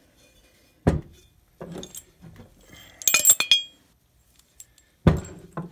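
Metal bandsaw riser block parts knocking and clinking as they are handled and set down: a knock about a second in, a cluster of bright ringing clinks around three seconds in, and another knock near the end.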